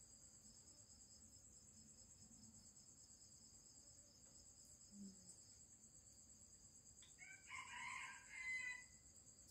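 Faint steady chirring of night insects such as crickets. About seven seconds in, a brief animal call lasting under two seconds rises above it and is the loudest sound here.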